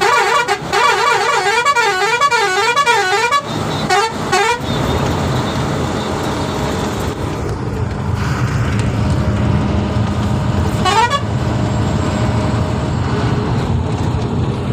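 Vehicle horn sounding a warbling tone whose pitch rises and falls about twice a second for some three seconds, then two short blasts around four seconds in and a brief rising toot near eleven seconds. Underneath is the steady rumble of the bus engine and road noise, heard from inside the bus cabin.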